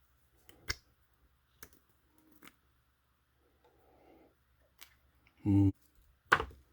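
Sparse light clicks and taps from the small parts of an RC car shock absorber being handled and pushed apart by hand. There are about half a dozen separate clicks, with the sharpest near the end.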